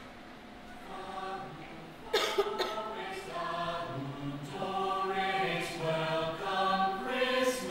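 A choir of Whos singing together without instruments, a slow chant-like carol. It starts faintly, comes in fully about two seconds in, and builds in long held notes.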